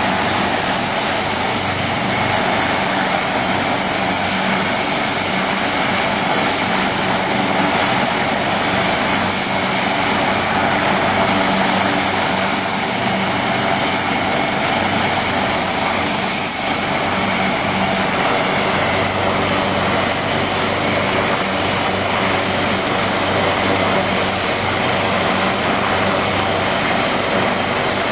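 AgustaWestland AW139 twin-turbine medevac helicopter running steadily on the ground before lift-off. The turbine whine stays at one constant high pitch over the engine and rotor noise.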